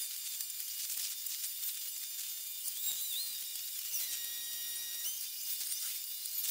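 High-pitched hiss dotted with rapid ticks and short chirping glides, with a thin steady whistle-like tone lasting about a second near the middle. This fits ambient quay sound sped up along with an 80x time-lapse.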